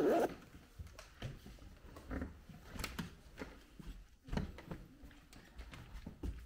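Scattered soft footsteps and knocks on a wooden parquet floor, irregular and quiet.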